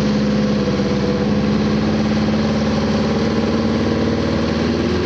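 An engine running steadily at a constant, even pitch, its pitch dropping slightly near the end.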